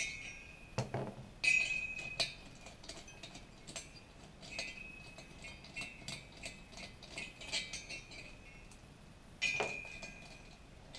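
Metal clinks and light ticking of a hand wrench working the head bolts loose on a 66cc two-stroke bicycle engine's finned cylinder head, with loose parts set down. Sharp ringing clinks come about a second and a half in and again near the end, with softer ticks between.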